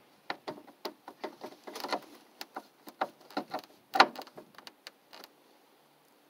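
Hand screwdriver turning Phillips-head screws into a plastic front panel over the radiator: a run of irregular clicks and small knocks, the loudest about four seconds in, stopping a little after five seconds.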